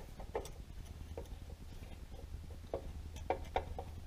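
Scattered light metal clicks and taps of a 6 mm Allen wrench working at the very tight caliper mount bolts on an ATV's rear brake, over a low steady hum.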